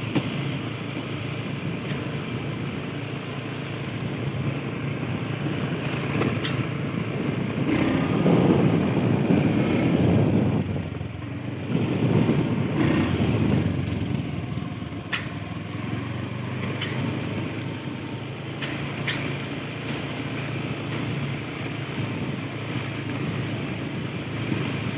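Motorcycle engine running steadily as the bike rides a rough dirt track, getting louder twice, about eight and about twelve seconds in, with scattered sharp knocks and rattles from bumps.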